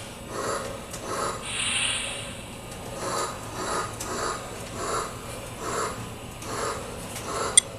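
Lionel LionChief locomotive's sound system making slow, soft rhythmic chuffs, about one every half to three-quarters of a second, with a brief hiss early on; one sharp click near the end.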